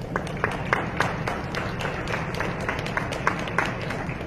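Scattered clapping from spectators, a few hands at a time with irregular sharp claps, over a steady hum of the hall.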